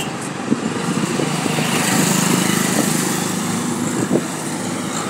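Road traffic heard from a moving bicycle: a motor vehicle's engine swells past, loudest about two seconds in, over a steady rush of road noise.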